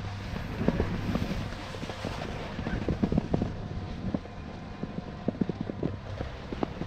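Chairlift ride: wind buffeting the microphone over a steady low hum from the running lift, with irregular knocks and clicks, the heaviest about three seconds in.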